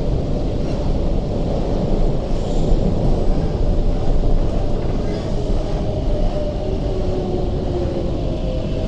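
MTR metro train heard from inside the carriage: a steady rumble of wheels on the track and running gear. A faint whine slides lower in pitch in the second half as the train slows toward a station.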